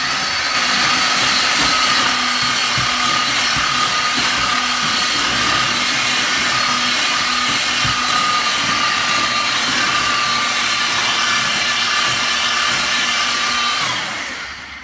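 Eibenstock handheld paddle mixer running steadily, its paddle churning a cement-based stamp overlay mix in a plastic bucket, with a constant motor whine. The sound dies away near the end.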